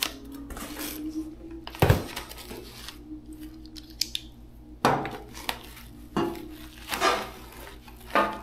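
Packaging being handled on a workbench: a cardboard box pushed aside and a padded envelope holding a kit of small hardware picked up and set down. About five sharp knocks and clatters stand out.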